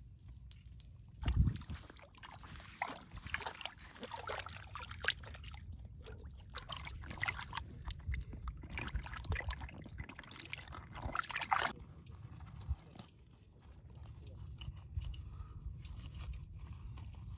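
Shallow river water sloshing and splashing around hands as a plucked chicken carcass is rinsed and cut in it, with small irregular splashes and clicks. A dull thump about a second in is the loudest sound.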